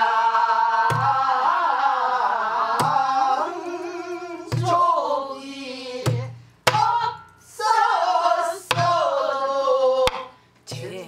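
Pansori singing: long, wavering melismatic vowels that slide in pitch, accompanied by a buk barrel drum. The drum gives a deep thud or a sharp stick click every one to two seconds.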